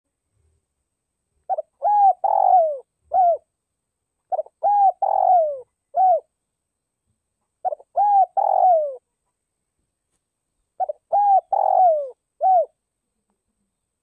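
Spotted dove cooing: four phrases about three seconds apart, each a quick lead-in note, a drawn-out coo falling in pitch and a short closing coo. It is a decoy bird's calling song, used to stir up rival doves.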